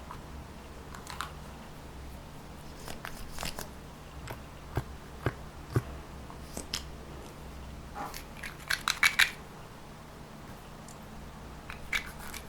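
Slime being kneaded and stretched by hand, giving scattered sticky clicks and small air-bubble pops, with a quick run of louder pops about nine seconds in. A low steady hum lies underneath.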